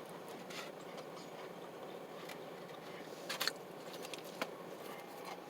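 Quiet room hiss with a few soft, short clicks about three and a half seconds in and once more a second later.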